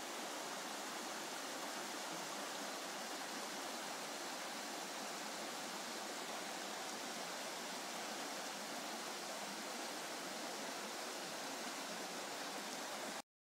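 Shallow river rushing over rocky riffles: a steady, even rush of water that cuts off suddenly just before the end.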